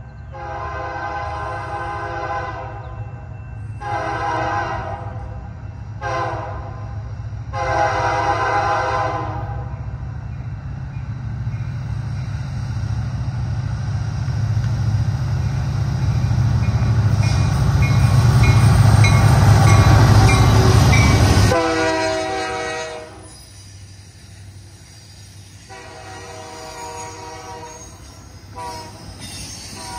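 Diesel locomotive horn blowing the grade-crossing signal, long, long, short, long, as the freight train approaches. The locomotives' engine rumble then builds to a loud peak with a bell ringing quickly as they pass, and drops away suddenly about 21 seconds in, leaving the quieter rolling of autorack cars with scattered ringing squeals.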